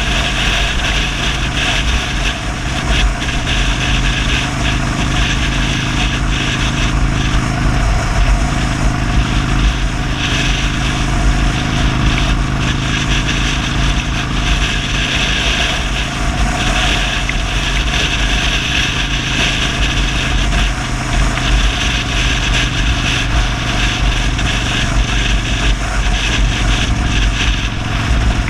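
Motorcycle engine running steadily at road speed, heard from the handlebars with wind rush and road noise; the engine note dips briefly about eight seconds in, then settles again.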